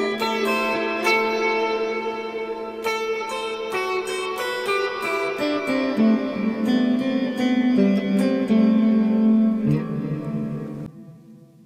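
Electric guitar played through an EarthQuaker Devices Afterneath V3 reverb pedal, picking single notes and chords. The playing stops abruptly near the end, leaving a faint fading tail.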